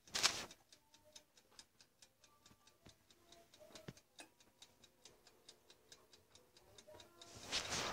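Countertop oven's mechanical timer ticking fast and evenly as it counts down the baking time, with a brief bump of handling noise just after the start and a rustle near the end.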